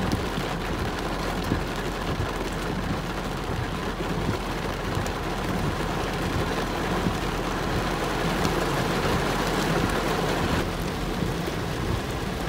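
Heavy tropical downpour drumming on a car's roof and windshield, heard from inside the cabin as a steady, dense hiss.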